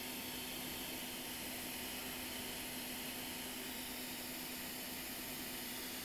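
Steady airflow hiss with a faint constant hum, unchanging throughout.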